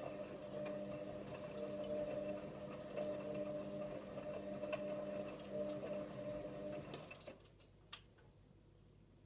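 Hotpoint WMA34 front-loading washing machine during a quick wash: the drum motor hums steadily while the laundry tumbles, with light knocks, then the motor stops about seven seconds in. A single click follows a second later.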